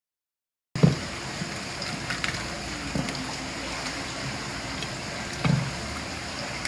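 A knife cutting through a raw crab's body and shell on a wooden cutting board: three dull thumps a couple of seconds apart, with small clicks of shell in between, over a steady background hiss.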